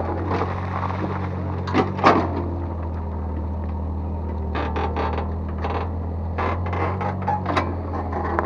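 Excavator's diesel engine running steadily while it digs, with a couple of sharp knocks about two seconds in and a run of knocks and scrapes in the second half from the bucket working the soil.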